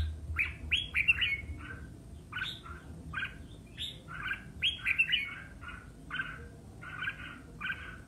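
Red-whiskered bulbul singing: short, quick notes strung into brief phrases, repeated with short pauses.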